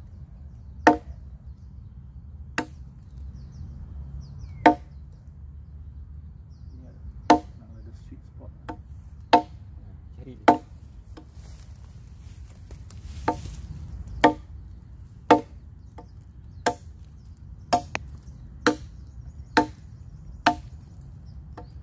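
A parang (Malaysian machete) chopping into a log, about fifteen sharp separate chops roughly one every second or so, each with a brief ring.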